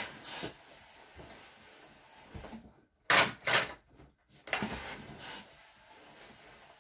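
Ironing with a steam-generator iron: the iron sliding and the cloth being handled, with a few short, loud swishes about three seconds in and again near five seconds.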